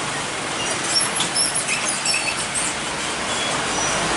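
Road traffic crossing a railway level crossing on a wet road: a steady hiss of tyres and engines from trucks and motorbikes, with a scatter of short, high squeaks between about half a second and two and a half seconds in.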